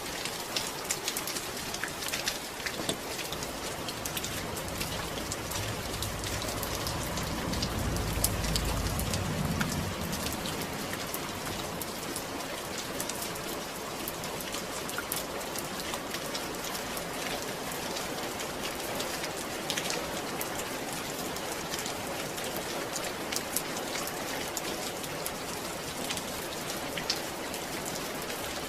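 Steady rain falling, with many small drop patters over an even hiss. A low rumble swells and fades about six to ten seconds in.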